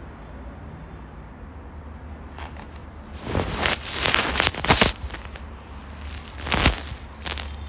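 Handling noise of a phone being picked up and repositioned: a cluster of knocks and rubbing on the microphone, then one more knock a little later, over a low steady hum.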